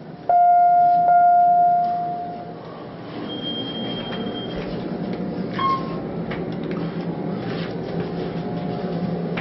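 Inside an Otis hydraulic elevator cab, an electronic chime sounds twice, close together. A few seconds later the car starts moving with a steady low hum that carries on, while a brief high beep and a single click are heard over it.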